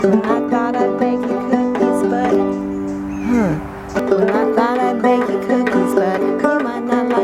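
Clawhammer banjo playing an instrumental passage: quick, steady plucked notes over a ringing drone string.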